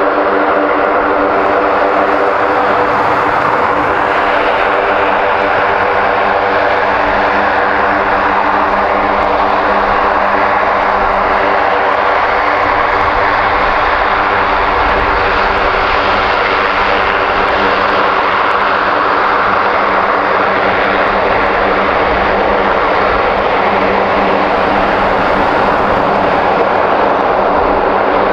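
Lockheed C-130 Hercules's four turboprop engines running on the ground, a loud steady propeller drone: a hum of several fixed tones under a broad rush, holding level without change.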